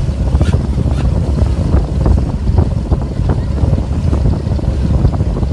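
A boat under way at sea: a steady low rumble with wind buffeting the microphone.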